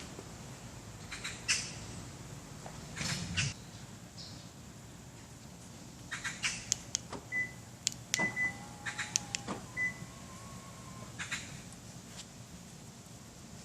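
A run of sharp clicks with three short high beeps among them, after a couple of brief rustling swishes, over a faint low steady hum.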